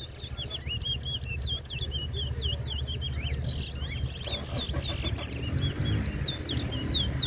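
Caged towa-towa finches singing: a fast, continuous run of short, high chirping notes, counted as songs in a bird-singing race. A steady low rumble sits underneath.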